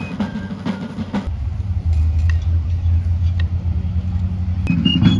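Background music with drum strokes and short high notes, which gives way about a second in to a steady low rumble lasting roughly three seconds; the drums and high notes return near the end.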